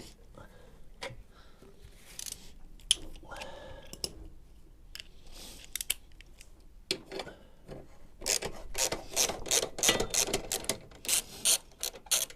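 Ratchet clicking as the 17mm exhaust clamp nut is worked loose, with scattered metallic clinks at first, then rapid runs of ratchet clicks from about eight seconds in.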